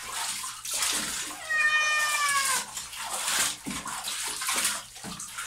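An Abyssinian cat gives one long, drawn-out meow about a second and a half in, falling in pitch at its end, over water noise in the bathtub. The crying is his distress at being bathed.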